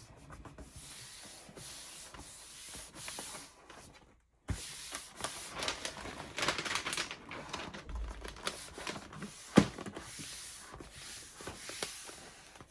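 Hands rubbing and smoothing a paper print flat onto a corrugated plastic board, a steady scratchy friction sound, with one sharp tap or knock a little before ten seconds in.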